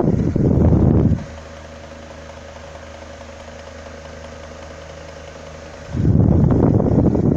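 A Britânia B-30S 30 cm electric fan running. Its air blast buffets the microphone, then about a second in the buffeting drops away to leave a steady, much quieter motor hum with a light whoosh of the blades. The blast on the microphone returns about six seconds in.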